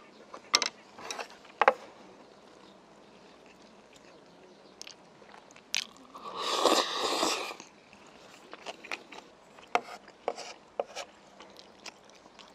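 Close-miked mukbang eating sounds: scattered clicks and smacks of mouth and utensils, a loud slurping intake of a mouthful of food with chopsticks lasting about a second and a half from around six seconds in, then quieter chewing and clicks.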